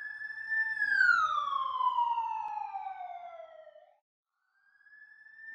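A siren wailing: the pitch rises briefly, holds, then falls slowly over about three seconds and fades out, and a second wail begins rising near the end.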